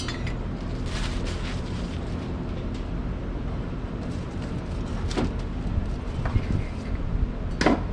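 Steady low hum of background noise, with a few short knocks and rustles as metal oven parts and packaging are handled, the sharpest near the end.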